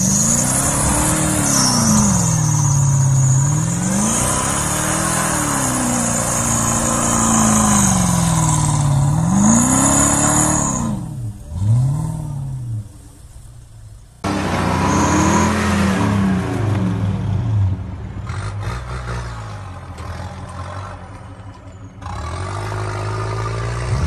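Toyota Land Cruiser SUV's engine revving up and dropping back again and again, each pull lasting two to three seconds, as the vehicle struggles for grip on snow and mud. The engine noise falls away for a few seconds around the middle, then the revving resumes.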